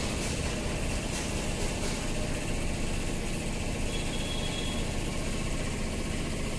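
Steady mechanical hum with a broad hiss, unchanging in level and pitch throughout.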